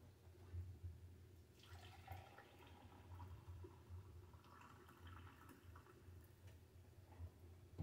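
Near silence over a low steady hum, with faint sounds of coffee being poured into a mug about two seconds in and again around five seconds.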